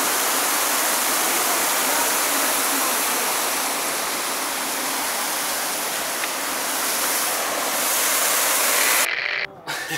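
Waterfall rushing in a steady, dense roar of falling water that cuts off suddenly about nine seconds in.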